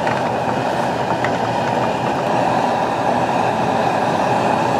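Steady rushing noise from a gas stove, its burner running under an aluminium pan of pasta boiling in sauce.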